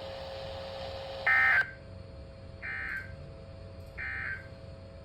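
Emergency Alert System end-of-message data bursts: three short bursts of buzzy digital data tones about 1.3 seconds apart, the first the loudest, signalling the end of the alert broadcast. Faint steady hum and hiss lie underneath.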